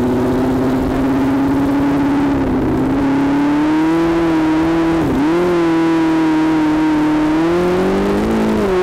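Engine of a 1,000 cc racing sidecar outfit running hard at high revs. Its pitch steps up a little way in, dips sharply and recovers about halfway through, and climbs again near the end as the throttle is worked.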